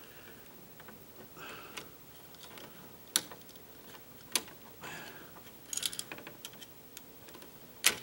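Light switch and stiff electrical wires handled in a wall box: scattered sharp clicks and light rattles, with soft rustling between them. A short clatter of clicks comes about six seconds in, and the loudest click comes near the end.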